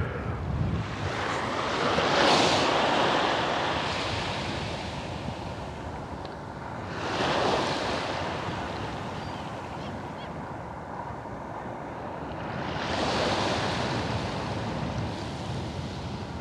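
Waves breaking and washing up on a beach, three swells of surf about five to six seconds apart, with some wind on the microphone.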